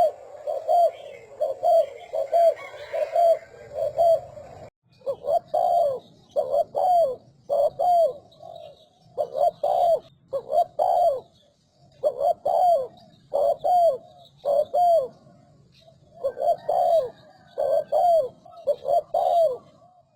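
Spotted dove cooing in a fast series. For the first few seconds there are about two even coos a second. After a brief break come repeated phrases of two or three coos with falling notes.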